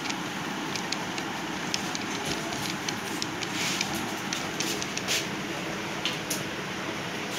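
Steady background hiss with scattered light clicks from handling a wire at a metal binding-post terminal.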